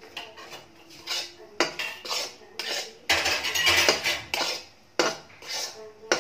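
A spatula scrapes and stirs dry gram flour (besan) around a metal kadhai in repeated strokes, about two a second, with one longer, louder scrape about three seconds in. The flour is being dry-roasted with no oil in the pan.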